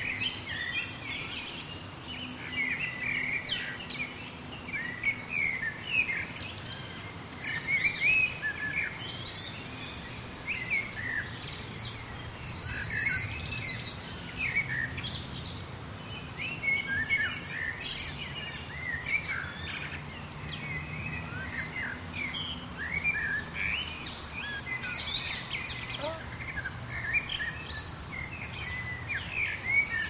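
Many small songbirds chirping and twittering continuously, with a couple of brief high, rapid trills, over a faint steady low background hum.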